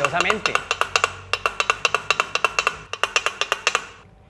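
Bajaj Pulsar cylinder-head valve tapping rapidly against its seat on a valve-seating bench, a hard ringing clack about eight times a second that stops abruptly near the end. This is extra lapping with grinding paste to correct a seat that shows small cracks and erosion.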